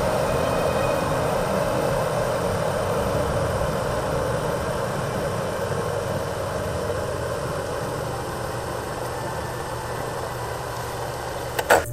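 Bodum electric kettle heating water: a steady rushing hiss and rumble that slowly fades, then a sharp click near the end as it switches off.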